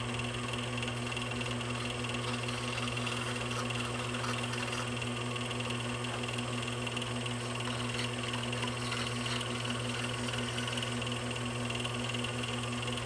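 Wood lathe motor running steadily at slow speed, a constant low hum with a thin high whine above it.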